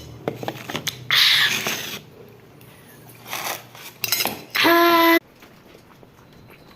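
Light clinks, then a loud hiss lasting about a second. After a few softer noisy sounds comes one loud, short, pitched burp lasting about half a second.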